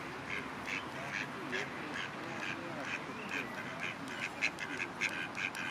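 Mallard ducks quacking: a steady run of short quacks, about two or three a second.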